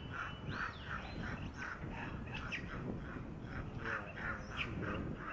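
Animal calls: a rapid, regular series of short high calls, about four a second, with a few whistled rising and falling notes over them.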